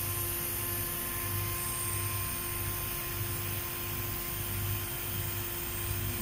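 Steady hum of running machinery, with a few held tones over a low throb that pulses about twice a second.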